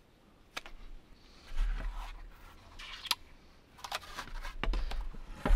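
Scattered light knocks, clicks and rustles of a thick, stiff bark slab and cord being handled against bamboo poles.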